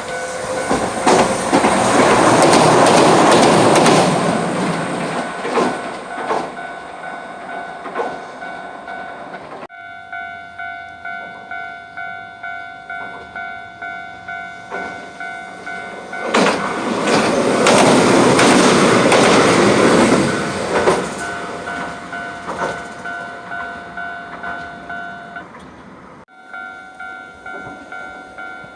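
Japanese level-crossing warning bells ringing in an even, repeated clang, about one and a half strikes a second, while Hiroden trains pass over the crossing, a loud rush of wheels on rails about a second in and again just past halfway. Near the end the bells stop for about a second, then start again.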